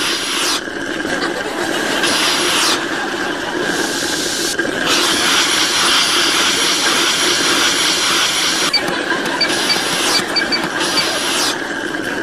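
Coffee vending machine brewing with a loud, steady hissing whine. The hiss cuts in and out several times.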